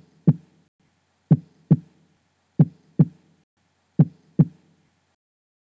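Heartbeat sound effect: slow, low double thumps in a lub-dub pattern, about four beats spaced roughly 1.4 seconds apart, with silence between.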